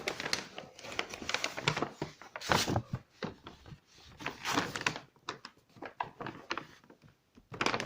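Packaging being handled as a football is taken out of its box: irregular rustling, scraping and a stream of small clicks and knocks.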